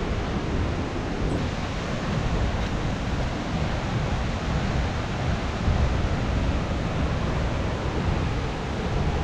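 Steady rushing roar of a large waterfall: an even, unbroken noise that neither rises nor falls.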